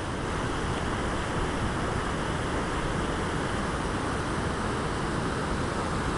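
River water rushing through rocky rapids below a low dam's weir, a steady rush of white water without a break.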